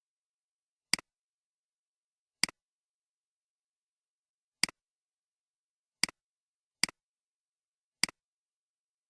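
Computer mouse button clicking six times at uneven intervals, each click a quick press-and-release double tick, with dead silence between.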